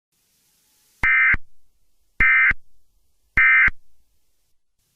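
Three short bursts of Emergency Alert System SAME digital data tones, each about a third of a second and about a second apart: the end-of-message code that closes an emergency alert.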